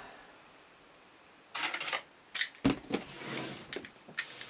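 Cardboard box being opened by hand: short scrapes and rustles of the cardboard with a few sharp clicks and a knock, starting about a second and a half in.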